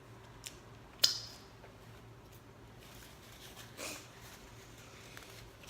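Quiet eating noises: a sharp click about a second in, a smaller one just before it, and a brief soft noise near four seconds, over a faint steady hum.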